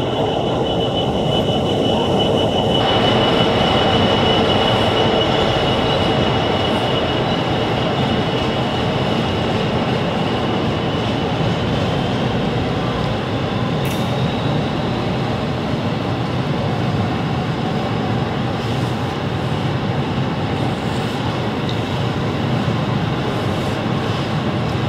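GBRf Class 66 diesel-electric freight locomotive running past at low speed, followed by a long train of covered coal hopper wagons rolling steadily by on the rails. A thin high squeal, likely from the wheels on the curve, sounds through the first several seconds and fades out.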